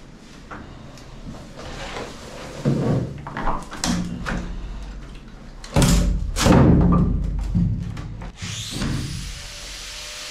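Irregular wooden thuds and clunks as pieces of an old wooden boat stringer are pried loose and handled inside a fiberglass hull, the heaviest knocks coming about six to seven seconds in.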